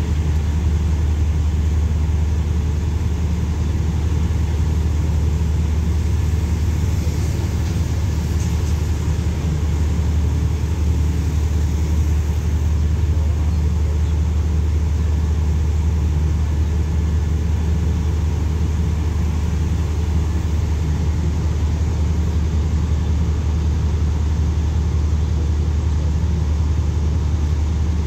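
Steady low rumble of a standing diesel passenger train's engines idling at the platform, even and unchanging throughout.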